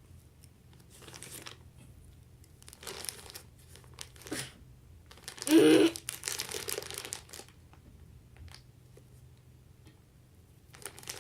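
Plastic bag crinkling in several short bursts as kinetic sand is handled, with the loudest burst a little past the middle.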